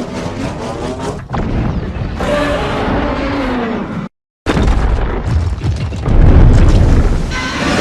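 Evolved Godzilla movie sound effects: a drawn-out monster roar whose pitch slides downward. After a brief dead stop it is followed by a loud, deep booming rumble that swells near the end.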